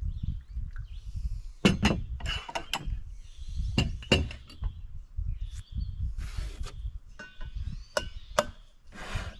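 A series of short, sharp knocks and clicks, several in quick succession about two seconds in, a pair around four seconds and another pair near the end, over an uneven low rumble.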